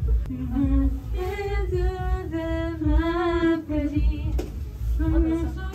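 A woman singing karaoke over backing music with a steady thumping bass, heard from a neighbouring karaoke room. She holds long, wavering notes.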